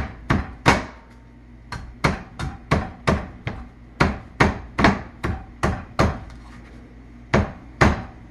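Meat cleaver chopping repeatedly into the husk of a young coconut on a cutting board: sharp chops about three a second, with two brief pauses, one about a second in and one near the end.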